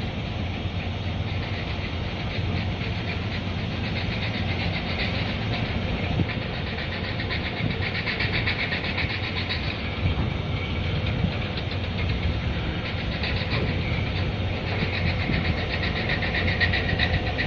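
An engine running steadily: a constant low hum with a fast, dense rattling clatter over it that swells a little about halfway through and again near the end.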